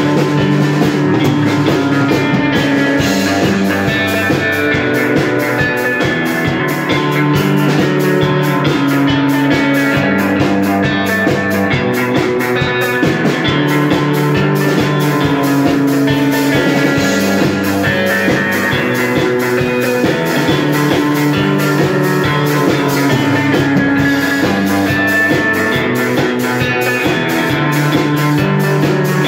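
Baritone electric guitar with single-coil pickups played through an amp: low sustained chords and notes in a rock style, rising and falling in a continuous line of changing notes.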